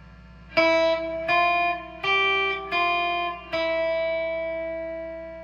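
G&L Legacy Tribute electric guitar played clean on its neck Alnico 5 single-coil pickup: five single notes picked on the high E string, starting about half a second in, the last one left to ring and slowly fade. A low steady hum sits underneath.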